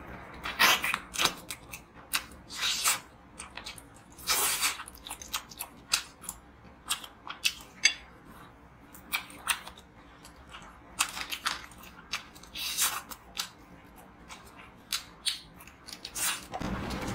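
Crispy breaded fried chicken being bitten and chewed: a run of irregular sharp crunches of the coating, with quieter chewing between.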